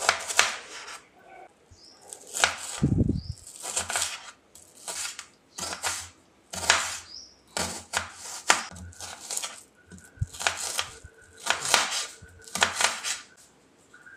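Kitchen knife dicing a red onion on a cutting board: a series of sharp chopping knocks, unevenly spaced, roughly one or two a second.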